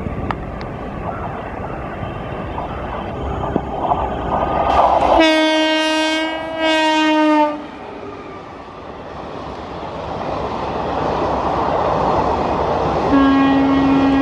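WAP-4 electric locomotive's air horn sounding a long blast with a brief break, its pitch sagging slightly as the locomotive draws level, while the train's running noise swells. Then the coaches run past at speed, the steady rail noise growing louder, and a second, lower horn tone starts near the end.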